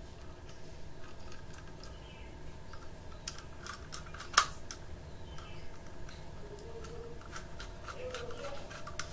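Small screwdriver turning a terminal screw on a plastic 32 A double-pole switch while a red phase wire is fastened into it. It makes faint scraping and small scattered clicks, with one sharp click about four seconds in.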